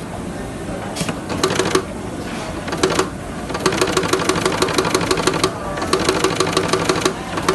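Three-needle chain stitch industrial sewing machine (LX-925) stitching in stop-start runs: a rapid, even ticking of needle strokes, with short runs at first and longer runs from about halfway, broken by brief pauses.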